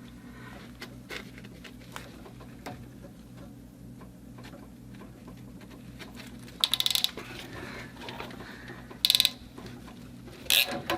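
Ratcheting PEX crimp tool being squeezed: three short bursts of rapid clicking, about six, nine and ten and a half seconds in, over a steady low hum.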